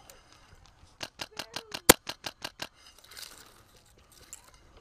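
Airsoft guns firing a quick string of shots, about six or seven a second for under two seconds, with one much louder, sharper shot near the middle.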